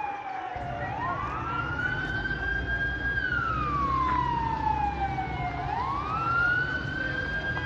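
Siren wailing in a slow rise and fall, climbing for about a second and a half, holding, then sliding down over two or three seconds before rising again. A low rumble comes in under it about half a second in.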